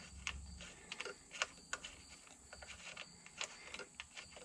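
Scattered faint metallic clicks and taps as the loosened half-inch bolts holding a motorcycle's ECM are backed out and lifted away.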